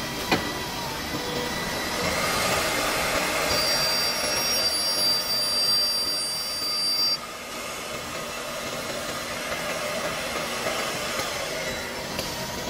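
Holztek CNC-2500BF45 horizontal CNC drilling machine's spindle running and working the edge of a wooden panel. It gives a steady hiss, with a high whine from about three and a half seconds in that stops about seven seconds in, where the sound drops a little.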